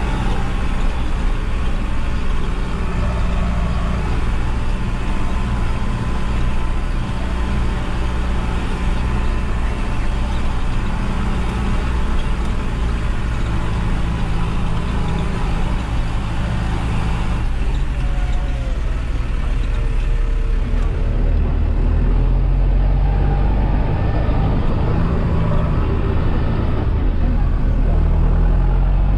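New Holland tractor's diesel engine running steadily while driving, its note shifting about two-thirds of the way through and running deeper and louder after that.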